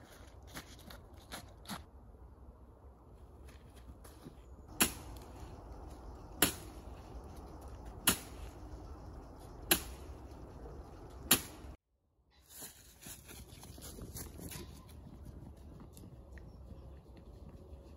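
Five sharp clicks, evenly spaced about a second and a half apart, over a faint steady hiss. The sound drops out for a moment just after the last click.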